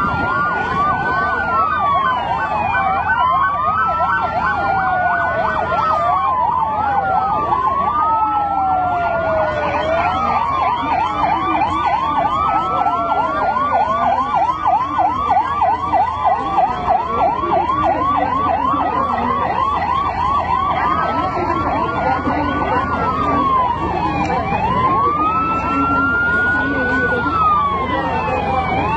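Emergency vehicle sirens wailing over one another: a slow wail rises and falls every few seconds, and a faster yelping siren warbles rapidly through the middle stretch.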